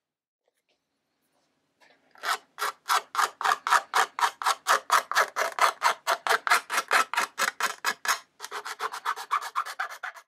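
Steel drypoint etching needle scratching lines into an acrylic (Perspex) plate in short, regular strokes, about four a second, that turn quicker and lighter near the end.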